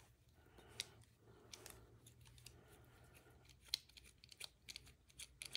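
Near silence broken by a few faint, scattered clicks of a small precision screwdriver turning out a screw from a folding knife's handle scale.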